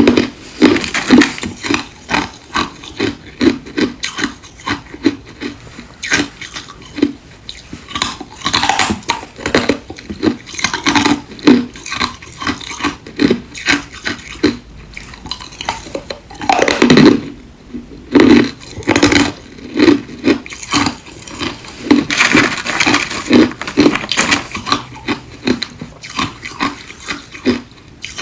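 Ice being bitten and chewed close to the microphone: an irregular run of loud, sharp crunches, several a second.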